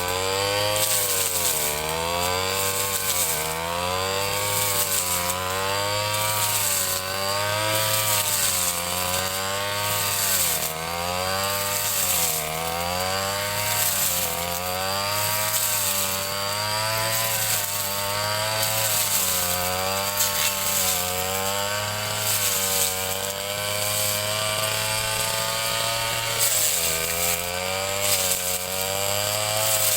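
Ryu 30.5 cc two-stroke brush cutter engine running at high revs while cutting grass. Its pitch dips and recovers every second or two as the cutting head takes the load.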